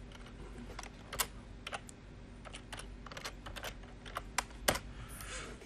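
Typing on a computer keyboard as a password is entered: a dozen or so separate key clicks at an uneven pace, with a louder click near the end.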